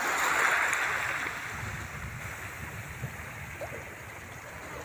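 Small waves washing onto a shallow sandy, rocky shore: a wash of surf that is loudest in the first second or so, then eases off.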